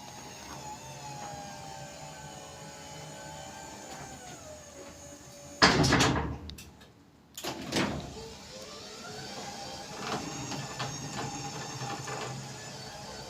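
Electric garage door running with a steady motor whine that winds down about four seconds in, followed by a loud clunk and rumble, a brief pause, a second knock, and the motor starting up again with a rising whine.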